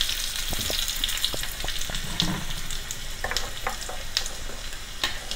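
Coconut oil sizzling in a small pan as a tempering of mustard seeds, sliced shallots, dried red chillies and fresh curry leaves fries, a steady sizzle with scattered pops and crackles.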